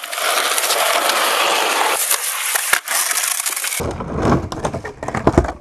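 Skateboard noise: a loud, even rolling hiss with scattered clatter, then abruptly a deeper rumble of skateboard wheels on a wooden mini ramp with a few sharp board impacts, the loudest near the end.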